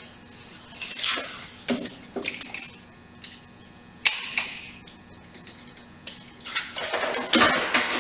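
Metal clinks and clatter of a trailer emergency air-brake coupling (gladhand) being handled and reconnected. There are several separate sharp clicks, with the loudest clatter near the end.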